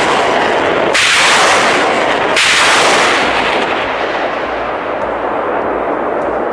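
BM-27 Uragan multiple rocket launcher firing a volley of 220 mm rockets: each launch is a sudden loud rushing blast. Fresh launches come about a second in and about two and a half seconds in, then the roar of the departing rockets slowly fades.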